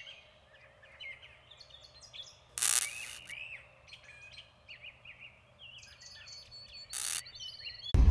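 Songbirds chirping and singing in short warbling phrases, with two brief loud hissy blips about two and a half seconds and seven seconds in. Right at the end it cuts suddenly to a louder low rumble.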